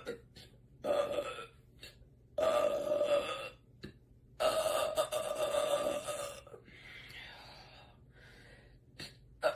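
A woman belching loudly, three times: short burps about one and two and a half seconds in, then a long drawn-out one about two seconds long, followed by a quieter stretch and a brief sound near the end.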